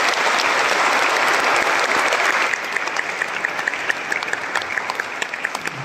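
Congregation applauding, fullest for the first couple of seconds, then thinning out into scattered claps.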